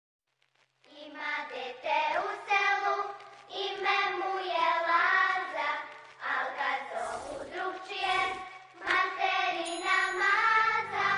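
A song with singing voices over backing music, starting after about a second of silence and going on in phrases with brief dips between them.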